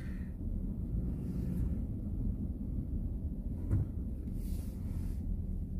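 Low steady rumble of a GMC Yukon XL's engine and road noise inside the closed cabin while driving, with one faint click partway through.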